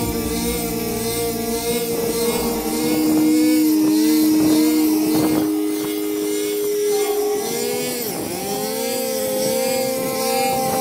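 Small four-stroke engine of a walk-behind paddy reaper running steadily, its pitch wavering up and down at times.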